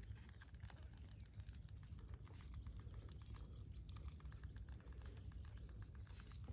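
Mud crab being bound with string by hand: a faint, dense run of small irregular clicks and crackles.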